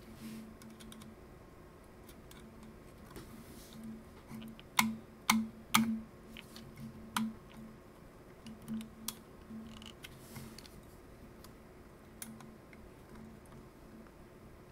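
Small screwdriver tip clicking and tapping against the plastic and metal parts of an opened Nikon L35AF2 compact camera, with handling clicks: a few sharp clicks about five seconds in, the loudest three about half a second apart, and fainter ticks scattered through.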